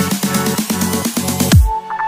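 Electronic dance music with a steady beat; about one and a half seconds in, a deep falling bass sweep and the beat drops out, leaving a few held synth notes.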